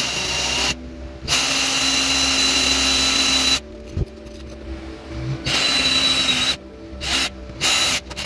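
Power drill boring out the rivets of a die-cast metal toy car, in stop-start runs: a long run of about two seconds, a shorter one, then two short bursts near the end.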